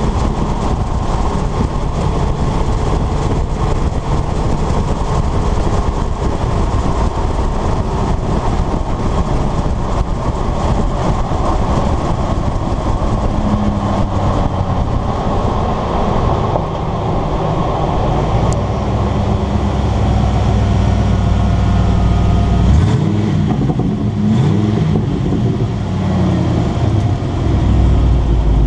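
1995 Ford F150's 302 V8 exhaust, heard from outside the moving truck with the exhaust cutout closed, running at road speed over road and wind noise. The engine note climbs in pitch for a few seconds after about two-thirds of the way through.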